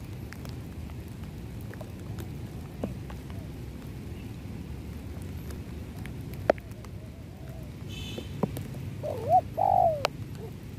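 Spotted dove cooing about nine seconds in, a short phrase of two or three rising-and-falling coos. Before it there is only steady rain with scattered drips.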